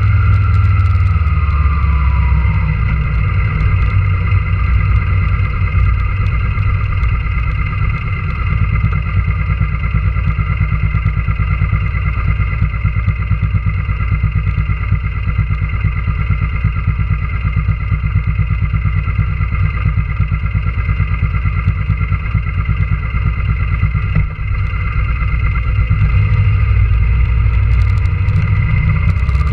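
Sport motorcycle engine heard up close from a camera mounted on the bike. It winds down over the first couple of seconds, idles steadily, and picks up again near the end.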